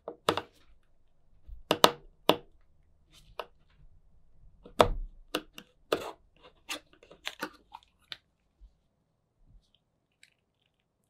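Flat screwdriver prying the press-fit lid off a metal tin of body filler: a string of sharp metallic clicks and pops as the blade levers the lid up around the rim, stopping about eight seconds in.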